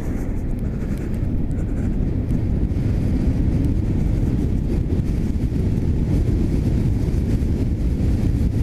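Wind rushing over the microphone, with road noise from an electric motorcycle accelerating at full throttle from a standstill. It grows louder over the first couple of seconds, then holds steady at speed.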